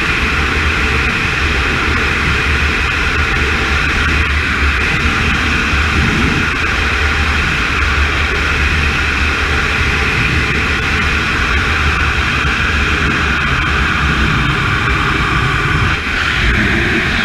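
Steady rushing roar of wind over the camera in wingsuit flight, unbroken except for a brief dip near the end.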